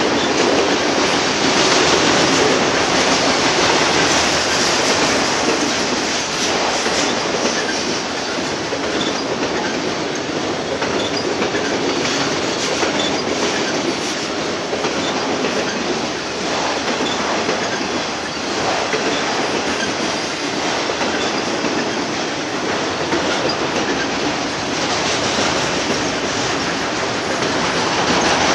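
Union Pacific auto rack freight cars rolling past close by: a steady, loud rumble and rattle of steel wheels on rail and the cars' bodies, with no locomotive in the picture.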